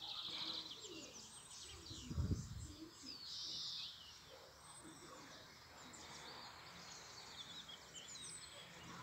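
Several songbirds chirping and trilling, with short high notes throughout and two longer trills. A brief low rumble about two seconds in is the loudest sound.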